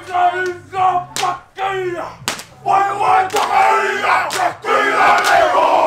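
A group of men shouting the chant of a haka-style war dance in unison, with sharp slaps roughly once a second.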